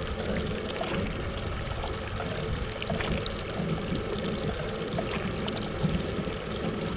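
Choppy water lapping and sloshing against a drifting boat's hull, a steady wash of noise with a few faint ticks.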